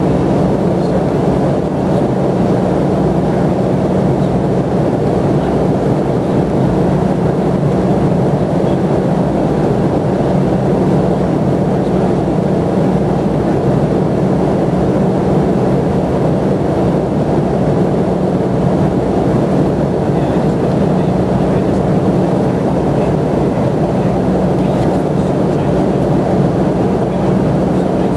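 Airplane cabin noise in flight: a steady rushing drone with a constant low hum beneath it.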